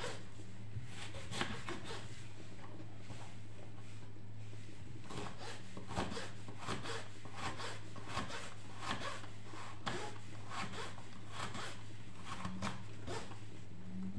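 Kitchen knife cutting a large raw carrot into thin julienne strips on a wooden cutting board: short crisp cutting strokes that end in light knocks on the board, roughly one a second, over a steady low hum.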